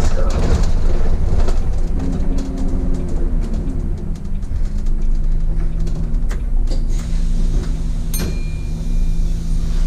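City bus running along a street, heard from the driver's cab: a steady engine and drivetrain hum with road noise. About eight seconds in, a single chime rings and holds briefly, the signal ahead of the automatic next-stop announcement.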